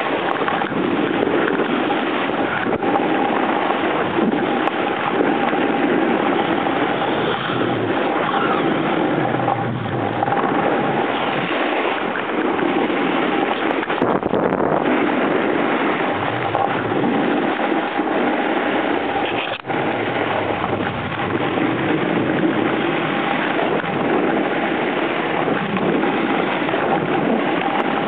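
Snowboard sliding down a groomed run, a steady rushing scrape of the board on packed snow mixed with wind on the microphone, swelling and easing every few seconds.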